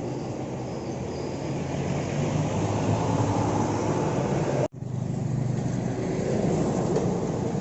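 Bus engine running amid road traffic noise, a steady drone with no horn sounding. About two-thirds of the way through it cuts out for an instant, then resumes.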